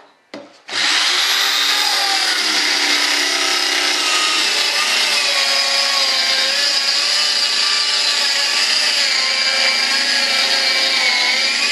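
A click, then a small handheld power saw starts up and runs steadily as it cuts through the edge of a cured resin-and-fiberglass composite mold. Its motor whine wavers slightly in pitch as the load on the blade changes.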